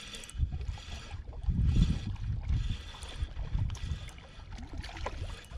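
Wind buffeting the microphone in low rumbling gusts, over the faint whir of a spinning reel being cranked against a hooked fish on a bent rod.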